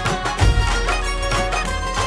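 Background music: an instrumental passage of a Hindi film-style song, with a steady drum beat over bass and melody instruments.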